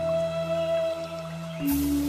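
Background music: a slow new-age piece of long held notes, moving to a new chord with a bright shimmer near the end.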